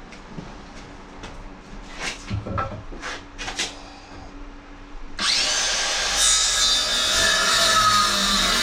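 A few light knocks and clicks of handling, then about five seconds in a loud, steady rasping noise starts suddenly and keeps on.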